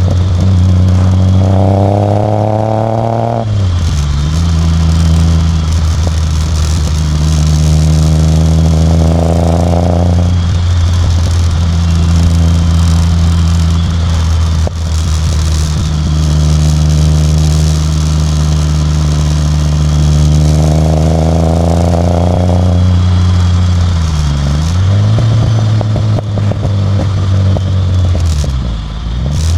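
Ford Taunus exhaust heard from a microphone right at the pipe while the car is driven: the engine note climbs under acceleration four times, with stretches of steady cruising between. The note drops sharply once after the first pull and dips briefly twice near the end.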